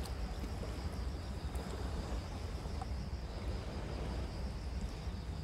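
Seaside background noise: a steady low rumble with a faint, steady high-pitched whine above it.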